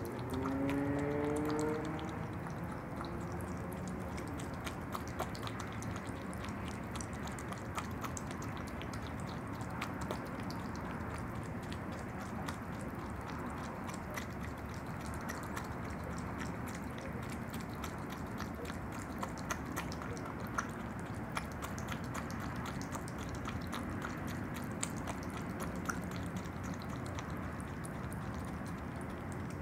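Opossum eating yogurt: many small wet mouth clicks over a steady low hiss. A brief rising pitched sound comes in the first two seconds.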